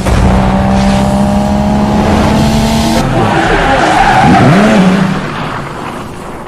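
Loud car noise with tyre squeal, starting abruptly and changing suddenly about halfway through, then fading away near the end.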